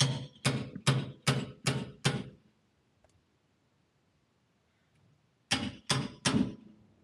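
Hammer striking the end of a knurled steel shackle bolt to drive it out of a trailer leaf-spring hanger. Six quick blows, a pause of about three seconds, then three more, each with a short metallic ring.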